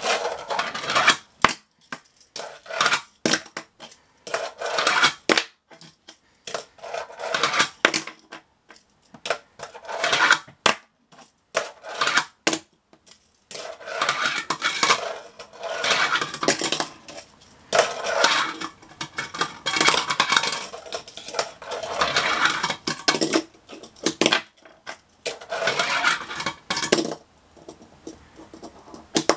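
Tech Deck fingerboard clacking and rattling on a hard tabletop as it is flicked through flat-ground tricks: irregular sharp clacks of the deck and small wheels landing, coming thicker and nearly continuous in the second half.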